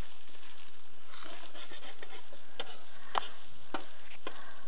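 Freshly added eggs frying in hot oil with onions, sizzling steadily, with a few sharp clicks in the second half.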